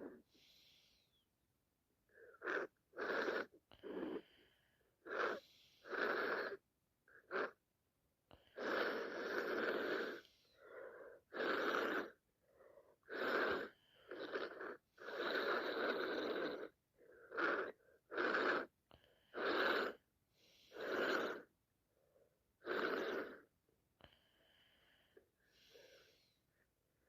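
A person with a nose congested by sinusitis sniffing and snuffling again and again, in about seventeen noisy breaths at an irregular pace. Most are short, and a few last a second or two.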